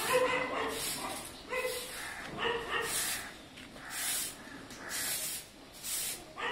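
Grass broom swishing across a concrete floor in regular sweeping strokes, about one a second. Several short, high-pitched whining calls sound over it, the loudest just after the start.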